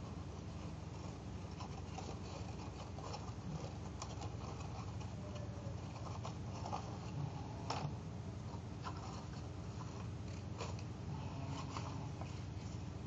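Paper rustling and crinkling, with scattered crackles and ticks, as hands handle a pleated paper rosette and then a flat sheet, over a steady low background hum.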